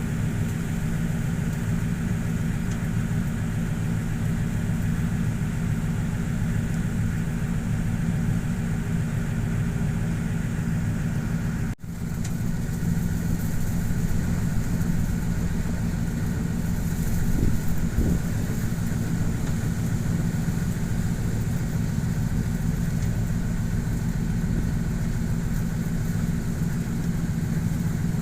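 Boat engine running steadily at a constant pitch, with a brief break in the sound about twelve seconds in.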